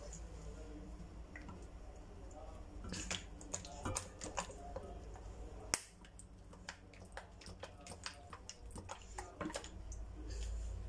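Scattered clicks and light taps as cooking oil is poured from a plastic bottle onto raw sliced onions in an aluminium pot, with one sharp click near the middle.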